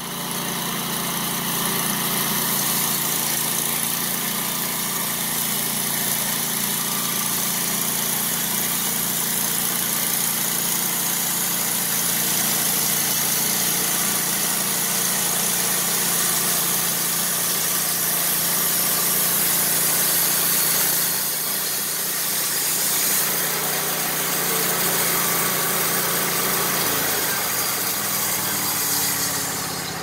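Wood-Mizer LT15 portable bandsaw mill running steadily: its engine note under a loud, even hiss as the band blade saws along a squared log. The engine note changes a few seconds before the end.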